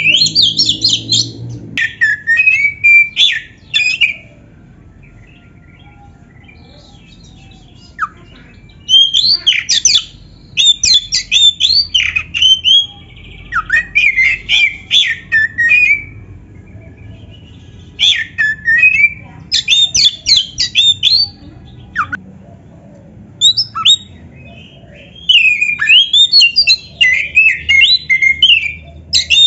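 Oriental magpie-robin (kacer) singing a varied, mimicry-filled ('isian') song: phrases of rapid, sweeping whistled notes and trills, broken by pauses of a few seconds.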